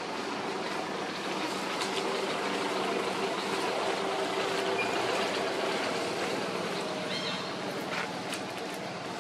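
Steady rumbling background noise with a faint low hum, with a few faint clicks near the end.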